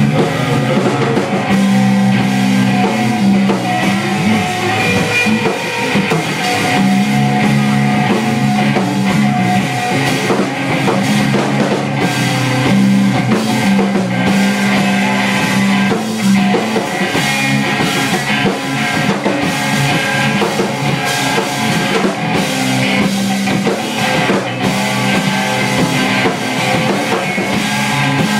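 Live rock band playing an instrumental stretch with no singing: drum kit, electric bass guitar and electric guitar, loud and steady.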